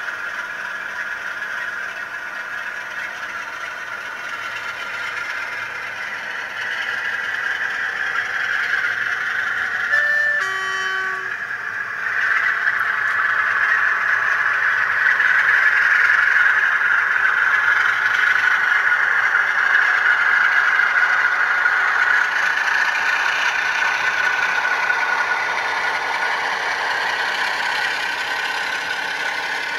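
Bachmann Class 47 model diesel locomotive running along the track, its steady running sound growing louder about twelve seconds in as it passes close by. A short two-note horn sounds about ten seconds in.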